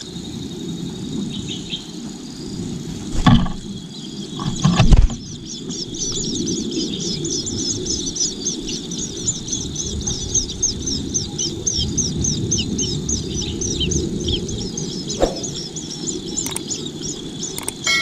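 Nestling birds chirping in a rapid, high-pitched series, the begging calls of chicks being fed. There are two loud thumps a few seconds in, over a steady low rumble.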